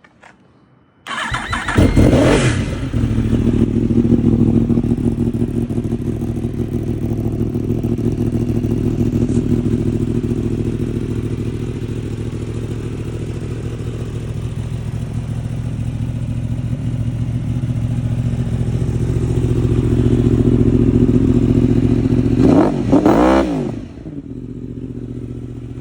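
Yamaha R1 motorcycle's inline-four engine, breathing through a Graves aftermarket exhaust, cold-started about a second in with a quick rev, then idling steadily. A second quick rev comes near the end, after which the engine sounds much quieter.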